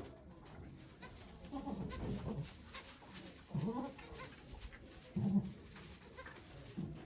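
A goat making about four short, low calls, a second or so apart.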